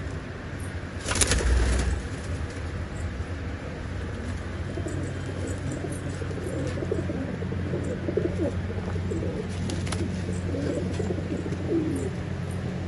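Racing pigeons in a loft cooing, several short overlapping coos from about five seconds in. About a second in, a pigeon's wings flap in a brief loud flurry.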